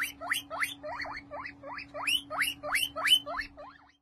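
Young long-haired guinea pig wheeking: a quick run of short squeaks, each sliding upward in pitch, about four a second, growing fainter and stopping near the end.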